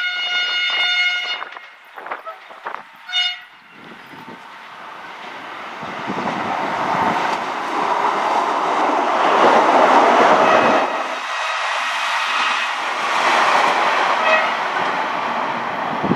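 DPKr2 diesel multiple unit sounding its horn, one blast of about a second and a half and a short toot about three seconds in. It then runs past close by, the engine and wheel noise on the rails building to a peak about ten seconds in.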